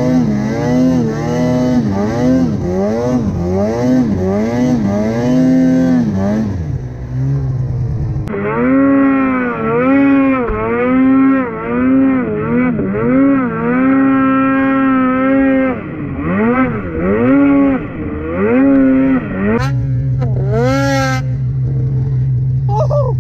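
Snowmobile engine revving up and down over and over as the throttle is worked. Near the end it drops to a steadier, lower note.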